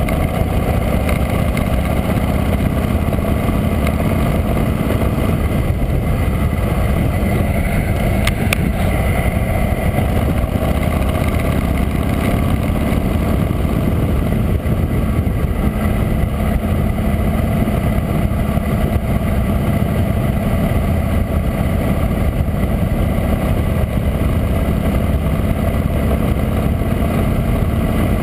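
Harley-Davidson V-twin motorcycle engine running steadily at cruising speed on the road, heard from a GoPro on the bike along with wind and road noise.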